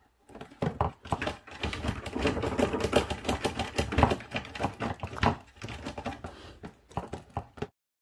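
Small dog's claws scratching and scrabbling at a wooden shelf, a fast uneven run of scrapes and knocks that cuts off abruptly near the end.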